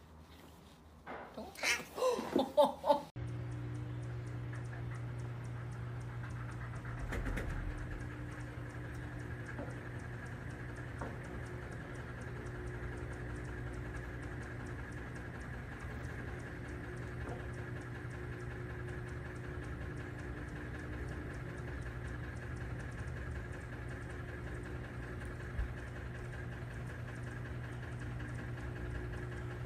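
A few brief, loud, voice-like sounds in the first three seconds, then a steady hum with a few constant tones for the rest.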